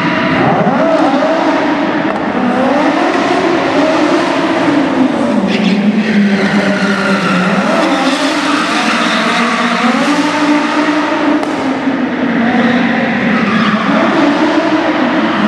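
Audi Sport Quattro S1's turbocharged five-cylinder engine revving hard and loud, its pitch repeatedly rising and falling as the car is drifted, with tyres squealing on the floor.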